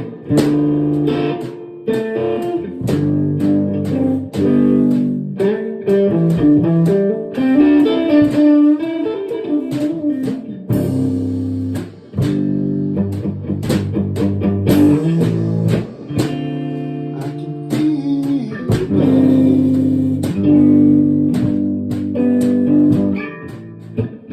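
Band playing an instrumental passage led by guitar, with bass underneath and no singing.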